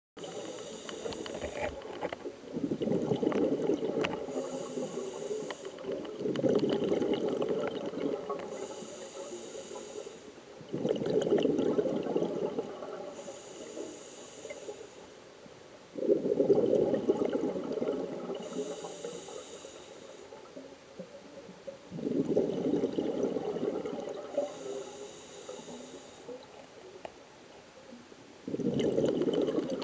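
Scuba diver breathing through a regulator underwater: a hissing inhale alternating with a bubbling exhale, about six breaths, one every five to six seconds.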